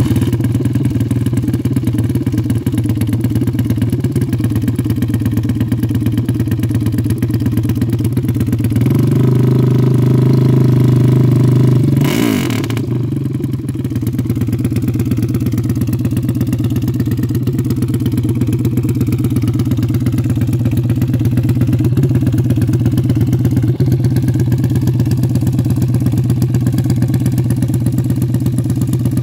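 Cuervo 930 sand drag racer's engine idling after startup. About nine seconds in it is held louder and steadier for about three seconds, then drops back to idle with a brief sharp crackle.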